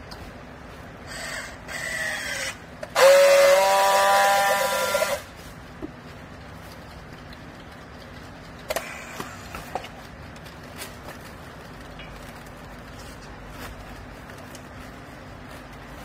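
Battery-powered handheld strapping tool running twice on plastic strapping around a compressed bale of rags: a shorter whir about a second in that falls in pitch, then a louder steady whine for about two seconds. A few sharp clicks follow later, over a steady low hum.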